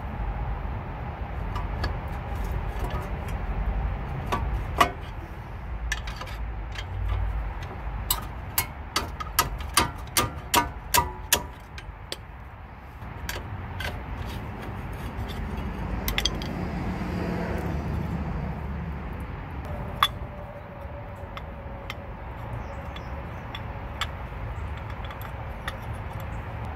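A screwdriver prying against a disc brake caliper and its pads to free them from a rusted rotor, with metal clicks and scrapes. About a third of the way in there is a run of about seven sharp metal knocks, roughly two a second.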